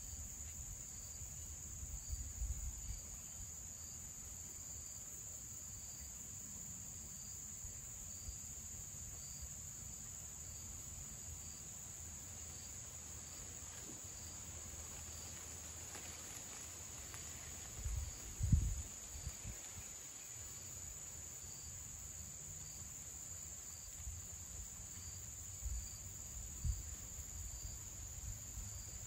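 Steady high-pitched insect drone, with a fainter chirp repeating at an even pace. A few low bumps on the microphone, the loudest about 18 seconds in.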